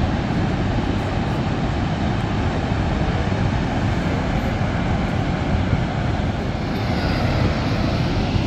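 Steady rushing noise of water pouring over Niagara Falls.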